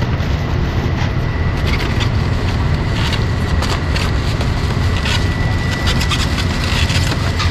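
Steady low rumble of street traffic, with a run of sharp clicks and knocks from about two seconds in.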